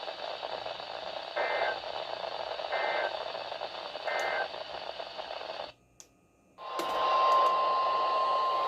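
Weather radio receiver over steady hiss sounding three short warbling data bursts of the EAS/SAME end-of-message code, about a second and a half apart. After a brief dropout about six seconds in, the long steady single-pitch weather radio alert tone starts, announcing the next warning.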